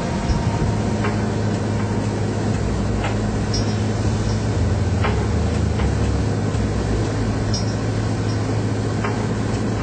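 Steady drone of an aircraft in flight: a constant low engine hum under an even rushing noise, with a few faint clicks.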